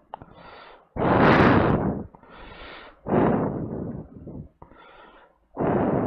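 A person breathing: three loud exhalations about two seconds apart, with softer inhalations between them.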